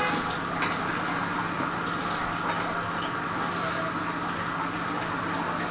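Fish curry simmering in a metal karahi over a gas burner: a steady bubbling hiss. A few light clicks come from the flat spatula against the pan as the curry is stirred.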